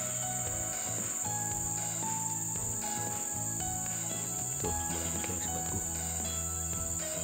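Insects chirring in a steady, high, unbroken drone, with soft background music whose notes change every half second or so underneath.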